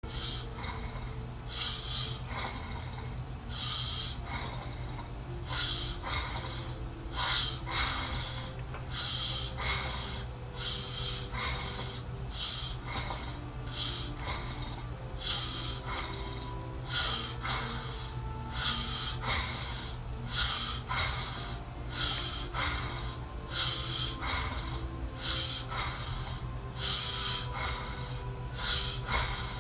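A man snoring in his sleep: short noisy snorts and breaths repeating irregularly, roughly one a second, over a steady low hum.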